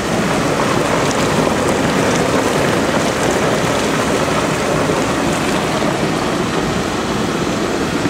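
Maple sap boiling hard in the stainless-steel pan of a sap evaporator: a steady, dense rushing and bubbling.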